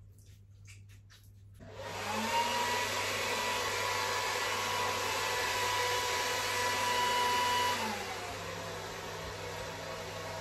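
An electric hair dryer switches on about two seconds in and runs steadily on high. Near eight seconds its pitch and loudness drop as it goes to a lower setting, running on to dry a freshly bathed wet kitten.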